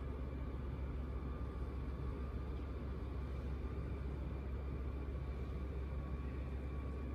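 Steady low hum with a faint even hiss of background noise, unchanging and without any distinct events.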